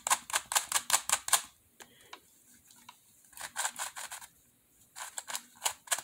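Yuxin Little Magic Megaminx V3 magnetic puzzle being turned quickly, its plastic faces clacking into place as the magnets snap them into line: rapid clicks, about seven a second, in three runs with a pause of about two seconds after the first. The puzzle is unlubricated, straight out of the box.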